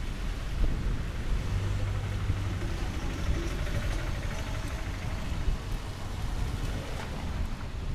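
Rainy street ambience: a steady low rumble of vehicle traffic with light rain, and a brief low engine hum between about one and a half and three seconds in.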